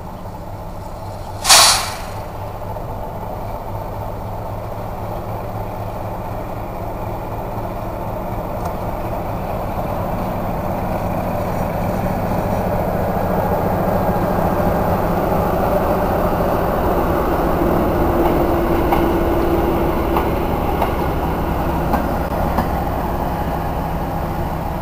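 PKP class SP42 diesel locomotive's engine running as it approaches and passes close by hauling a coach, growing louder as it comes nearer. A short sharp blast about a second and a half in is the loudest sound.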